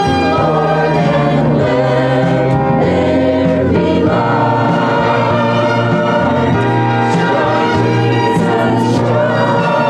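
Church choir singing with instrumental accompaniment.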